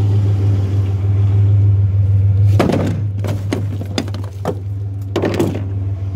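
A pickup truck's engine idling steadily with a low hum, while a heavy electric pump motor is loaded into the truck bed: several clanks and knocks starting about two and a half seconds in.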